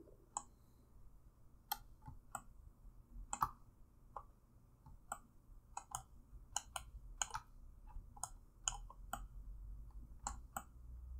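Computer mouse clicking: about twenty short, sharp clicks at irregular intervals, some in quick pairs, over a faint low hum.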